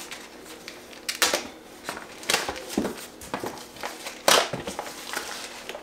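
Plastic and paper packaging rustling and crinkling as an item is unwrapped from a cardboard box, with three louder crackles, the loudest about four seconds in.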